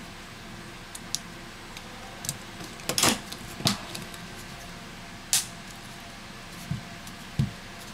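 Plastic middle frame of an LG X Power 2 phone being pressed down onto the handset, its clips snapping into place: a series of sharp plastic clicks, loudest about three seconds in and again past five seconds. Two soft, dull knocks follow near the end.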